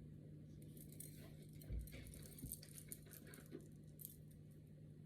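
Faint handling of a vegetable-oil bottle and cookware: scattered light clicks and taps, with a soft dull thump a little under two seconds in.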